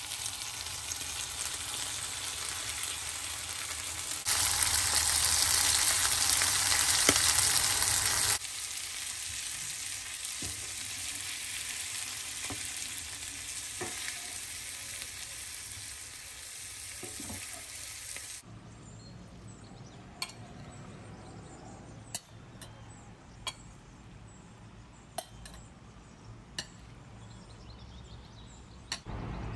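Fish, onion and green chilli mixture sizzling and being stirred in a hot iron skillet, louder for about four seconds a few seconds in. About two thirds of the way through the sizzle stops and a few sharp clinks of utensils follow.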